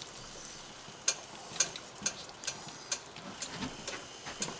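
Light, irregular clicks and small taps, roughly two a second, from kitchen work around the stove.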